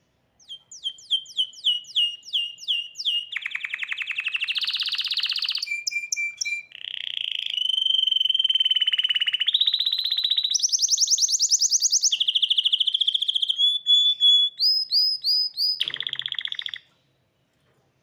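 Caged hybrid canary singing a long, varied song. It opens with a run of falling whistled notes, then moves through buzzy rolls and rapid high trills, some held steady on one pitch, and breaks off about 17 seconds in.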